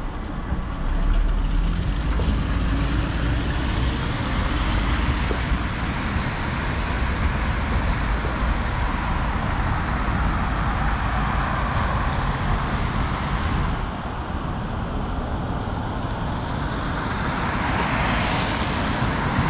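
A Vityaz-M low-floor tram pulling away from the stop, with a heavy rumble and a high steady whine that fades out over the first several seconds. After that comes traffic on a wet road, with tyre hiss, and a car swishes past close by near the end.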